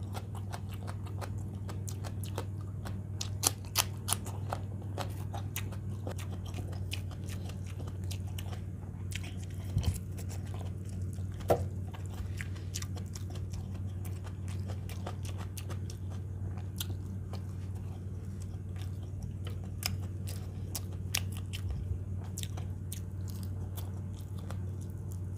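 Close-up chewing and crunching of raw salad vegetables and fried fish, with many small crisp clicks and a few louder crunches. A steady low hum lies underneath.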